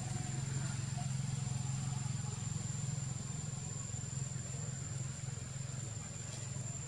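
A steady low hum, like a motor running, with a thin steady high-pitched whine above it.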